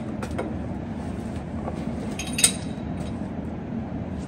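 Steady workshop background noise with small metal clinks of tools being handled, one sharper metallic clink about two and a half seconds in.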